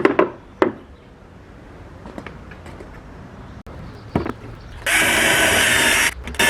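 A couple of knocks as a part is set in place, then a power drill runs at speed, boring a hole, for about a second, stops briefly and starts again near the end.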